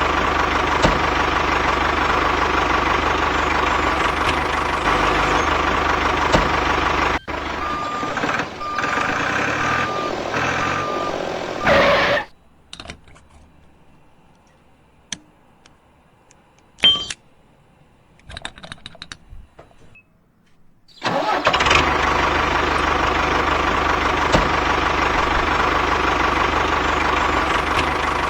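Steady engine-like running noise with a constant whine. About 8 seconds in it gives way to four short, evenly spaced beeps, then drops to a quiet stretch with a few clicks, and the running noise comes back loud about 21 seconds in.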